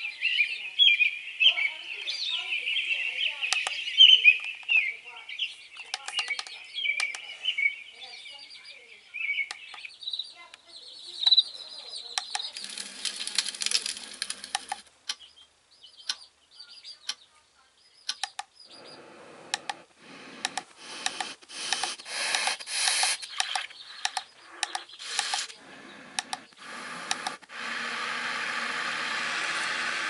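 Avantek white noise machine playing its built-in sound tracks one after another through its speaker: birdsong chirping for the first ten seconds or so, then a stretch of irregular clicks, and near the end a steady even hiss.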